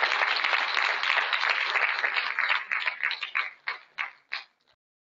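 Audience applauding: a dense patter of many hands clapping that thins out about two and a half seconds in to a few scattered claps and dies away after about four and a half seconds.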